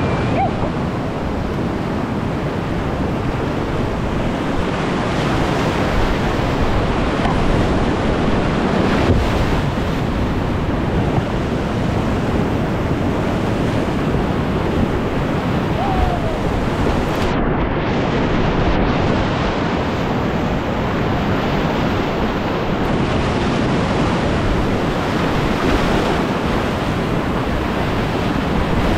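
Whitewater rapids rushing, a steady loud noise of churning water, with wind noise on the microphone.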